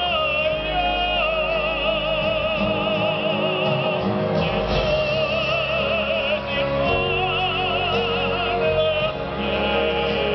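A solo singer's amplified voice holding long notes with wide vibrato, over sustained accompaniment from the troupe's choir and band.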